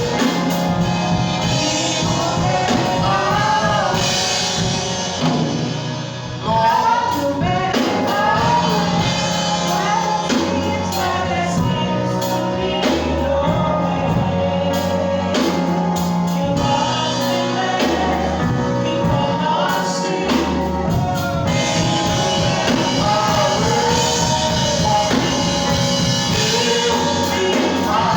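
Church worship music: a choir and singers performing a gospel song over a band's sustained bass notes.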